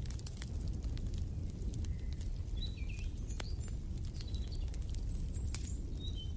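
Wood fire crackling, with frequent sharp pops over a low steady rumble, and a few short high bird chirps around the middle and again near the end.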